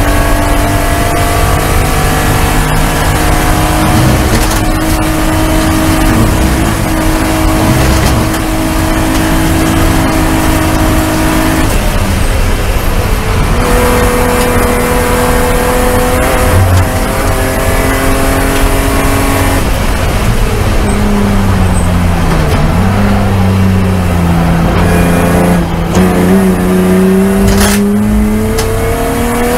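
BMW E36 straight-six race engine heard from inside the cockpit at racing speed. The revs climb slowly under load, drop sharply about twelve seconds in, then run fairly level with another dip and climb again in the last few seconds, over constant road and wind noise.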